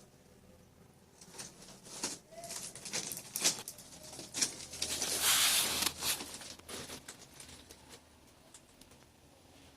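CPVC pipe and fittings being handled and worked: a run of light plastic clicks and knocks, with a longer scraping rub about five seconds in.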